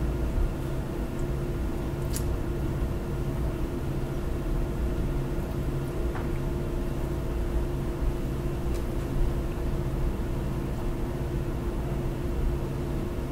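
Steady room hum and hiss with several constant low tones, broken by a faint click about two seconds in.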